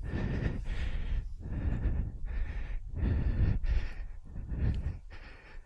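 Heavy, hard breathing from a person working a paraglider wing on the ground, in swells about once a second, over the steady low rumble of strong wind buffeting a helmet-mounted mic.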